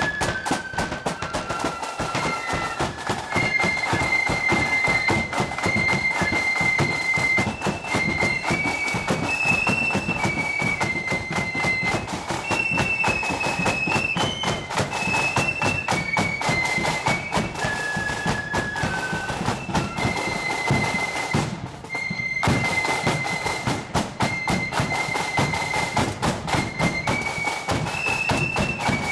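Marching flute band playing a tune: shrill flutes carry the melody over rapid snare drumming and bass drum beats. The tune stops for a moment about three-quarters through and then starts again.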